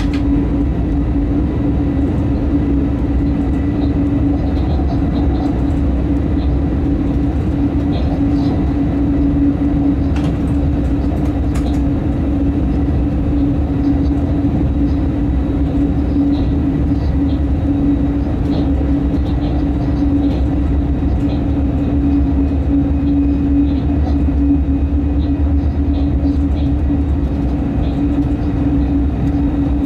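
Steady running noise inside a locomotive's cab while it travels on its own without wagons: a constant deep rumble with a steady hum over it and a few faint clicks.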